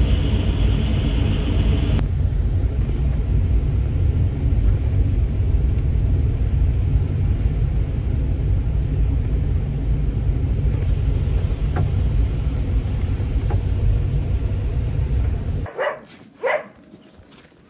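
Steady low road rumble from inside a moving vehicle. It cuts off near the end, followed by two short rising yelps from a dog.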